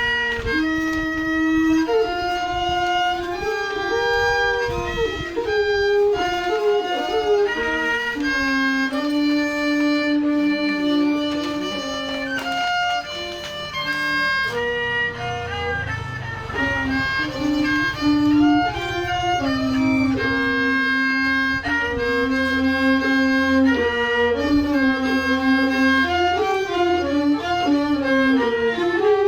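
A bowed string instrument plays a melody, with notes that slide from one pitch to the next.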